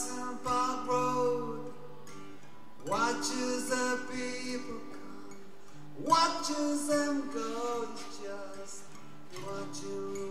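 Live band music: a slow song with guitar chords struck about every three seconds, each ringing out, over held low notes, with a man singing.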